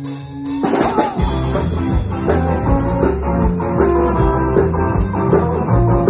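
Live rock band music: a held chord breaks, about half a second in, into the full band of drums, bass and guitar playing loud with a steady beat.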